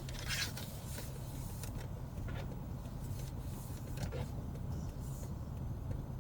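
Steady low engine and road hum heard from inside a car cabin, with a few brief, soft hisses.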